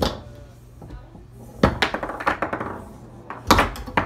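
Foosball game in play: the ball and rod figures knock hard against each other and the table's walls. A sharp knock comes at the start, a quick cluster follows about a second and a half in, and another strong knock comes near the end.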